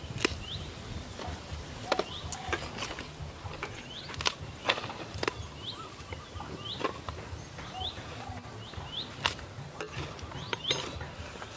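A metal spoon clinking and tapping against a metal pot and a wooden chopping board, in scattered sharp clicks. Birds chirp repeatedly in the background, in short rising notes.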